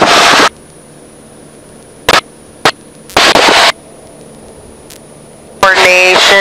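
Cessna 150 cockpit intercom audio: the engine and cabin noise it carries cuts off suddenly about half a second in as the intercom gate closes, leaving a faint steady hiss with a high whine. Two sharp clicks come about two seconds in and a brief burst of cabin noise a little after three seconds, then the cabin noise returns loudly near the end.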